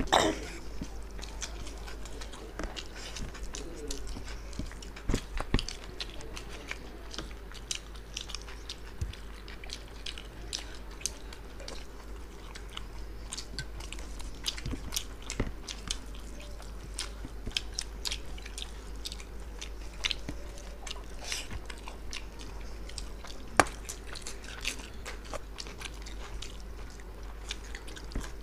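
Two people eating mutton biryani with their hands: close-up chewing and lip-smacking with many short, irregular wet clicks, over a steady low hum.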